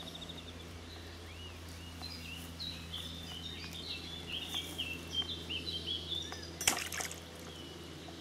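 A songbird singing a run of quick chirps and short arched whistles over a low steady hum, with a single sharp knock about six and a half seconds in, the loudest sound.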